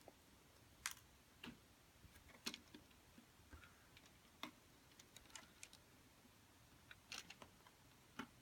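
Faint, irregular clicks and ticks of plastic Lego pieces being handled, scattered through otherwise near silence.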